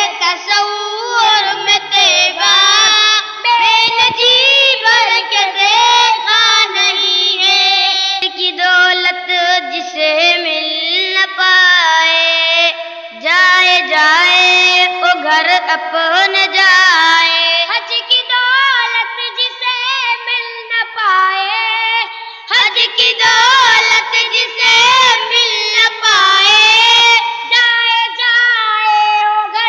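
Two boys singing an Urdu naat (a devotional poem in praise of the Prophet) in high children's voices, the melody gliding and ornamented from note to note.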